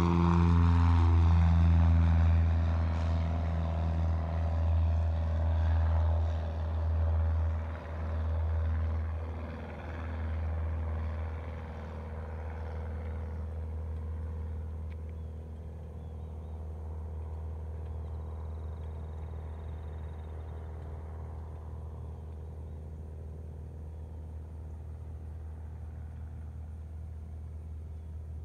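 Cessna 152's four-cylinder Lycoming engine and propeller droning at climb power on its first flight after overhaul. The pitch drops slightly about a second in as the plane passes, then the drone fades over the next ten seconds or so as it climbs away. A steady low hum carries on underneath to the end.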